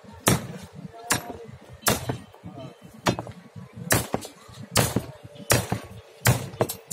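Small hammer striking steel rebar laid on wooden planks to straighten the bent bar: about eight sharp blows, a little under one a second.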